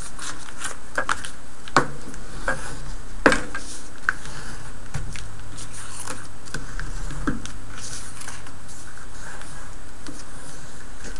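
Hands handling and pressing stiff 80-pound cardstock on a cutting mat: scattered light taps, clicks and paper rustles, with two sharper knocks about two and three seconds in.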